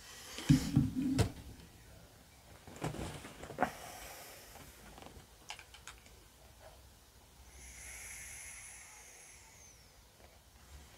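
Handling noise of a phone camera being moved and set up: rubbing and muffled thumps about half a second in, then a few scattered clicks. Around eight seconds in a faint high whistle-like tone holds for about two seconds and dips at its end.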